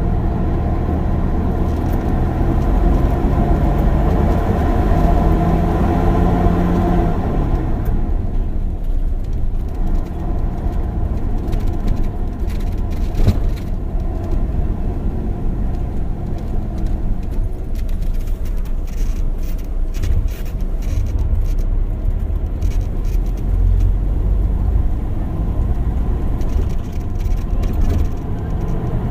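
Inside an old bus on a rough, poorly paved road: the engine note climbs slightly, then drops away about seven seconds in. After that comes a deep road rumble, with the cabin and seats rattling and squeaking.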